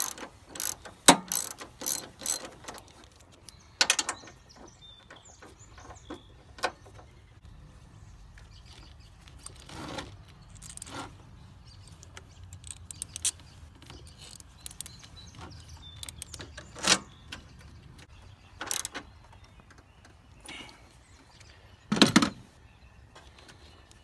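Hand socket ratchet clicking in quick runs as a 13 mm bolt is worked, followed by scattered metallic clicks and knocks from the bolt, washer and socket being handled, with a sharper knock near the end.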